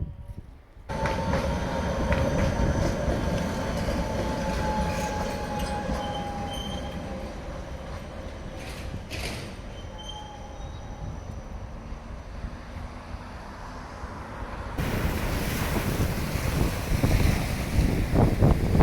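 Tram running on rails, its wheels squealing in steady high tones that sag slightly in pitch and fade over several seconds. About four seconds before the end it cuts suddenly to wind on the microphone and surf.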